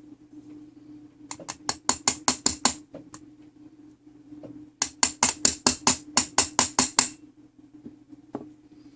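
Two quick runs of sharp metallic clicks, about six a second, from hand work on a French clock movement while a part is being worked down into place. A faint steady hum runs underneath.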